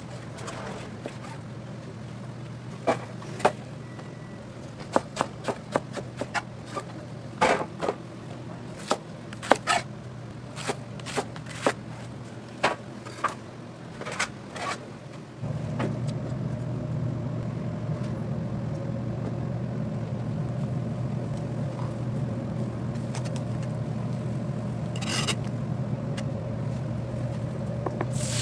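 Irregular sharp knocks and scrapes of kitchen prep, about one a second, then a steady low hum starts about halfway through and runs on.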